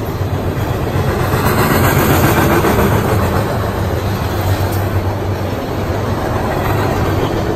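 CSX freight train's flatcars loaded with green waste containers rolling past close by: a steady rumble of steel wheels on rail that swells about a second in.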